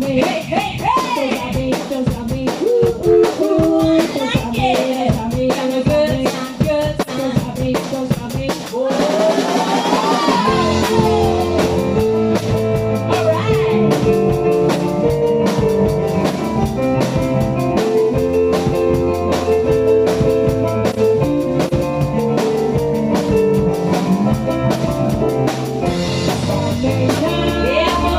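Background music: an upbeat song with a steady drum-kit beat, a singing voice gliding over it in the first ten seconds or so, then held chords over the drums.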